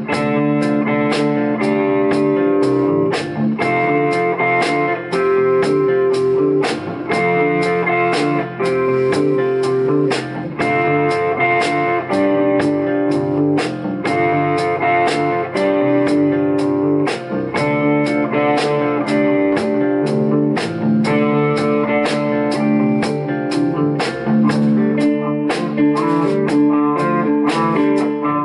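A live rock band playing: two electric guitars, electric bass and a drum kit. The guitars play a repeating riff over a steady beat with evenly spaced cymbal ticks.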